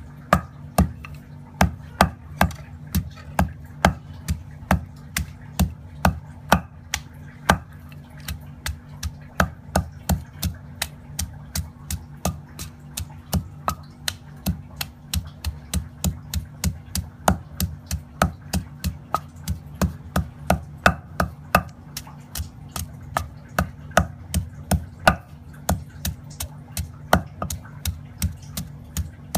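Wooden pestle pounding lemongrass paste in a heavy stone mortar: steady, even thuds, about two or three a second, over a low steady hum.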